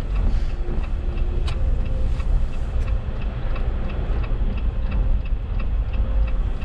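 Car cabin with the steady low rumble of the engine and tyres on the wet road; about two seconds in the turn-signal indicator starts clicking, about three clicks a second.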